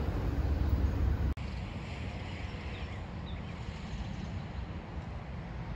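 Low rumble of a freight train that has just passed, cut off abruptly about a second in. Then steady wind noise on the microphone with a few faint high chirps.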